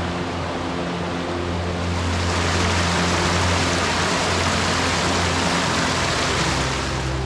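Rushing water: a steady hiss that grows louder about two seconds in and cuts off abruptly near the end, over background music with sustained notes.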